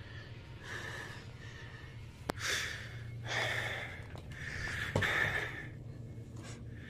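A person gasping and breathing heavily, four breathy gasps in a row, with two sharp clicks in between.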